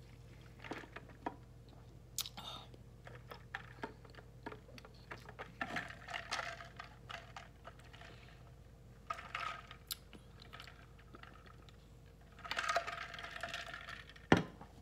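Whiskey being swigged: faint scattered clicks of the bottle and glass being handled, with a few short hushed noises in between and one sharp knock near the end.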